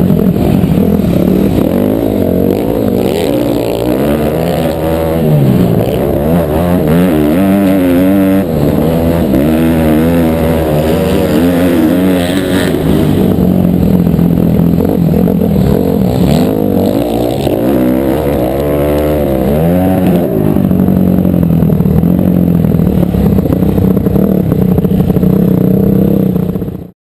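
Motocross bike engine revving hard and dropping off again and again as the rider accelerates and brakes through the corners, heard from the rider's own helmet camera. It cuts off suddenly at the end.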